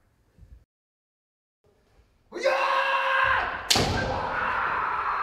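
After about two seconds of near silence, a kendo practitioner's long, drawn-out kiai shout starts. About three and a half seconds in, a bamboo shinai strike lands with one sharp crack while the shout carries on.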